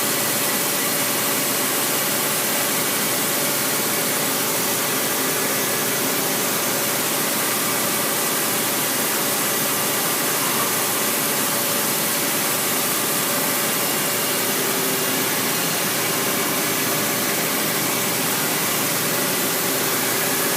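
Doosan Puma 240C CNC turning center running: a steady, even machine hiss with a few faint steady tones through it.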